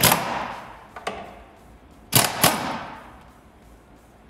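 Air impact wrench firing in short hammering bursts to loosen the scooter's muffler bolts: one burst at the start and two in quick succession a little over two seconds in, each trailing off in a fading hiss.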